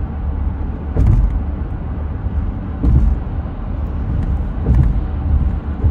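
Road noise inside a car cruising on a highway: a steady low tyre and engine rumble, with a short louder thump about every two seconds.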